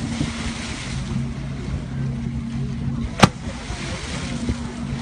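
A boat engine idling with a steady low hum, and a single sharp smack about three seconds in as a humpback whale slaps its long pectoral fin down on the water.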